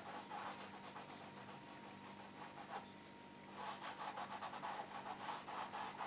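Fingertip rubbing across a canvas in quick short strokes, smudging wet oil paint along an edge. The rubbing is faint, eases off around the middle and picks up again about three and a half seconds in.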